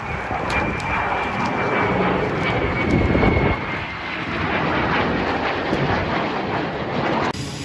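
Jet fighter engine noise: a steady, loud rush with a high turbine whine over it, which changes abruptly near the end.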